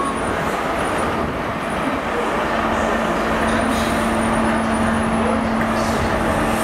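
GWR High Speed Train with Class 43 diesel power cars passing at low speed, a steady engine and wheel noise. A low, steady engine hum grows about two and a half seconds in as the rear power car comes by.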